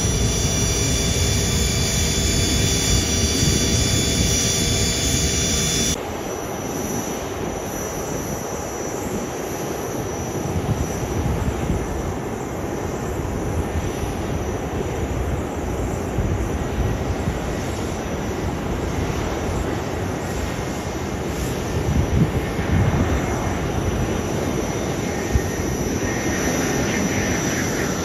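Business jet touching down, its engines whining with several steady tones. About six seconds in the sound switches to the rumble of an approaching Airbus A320-family airliner on final approach, growing louder as it nears, with its engine whine rising near the end.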